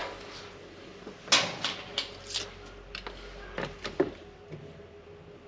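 Scattered light clicks, knocks and rustles of hands handling an LED light bar and its double-sided mounting tape, most of them in the middle seconds.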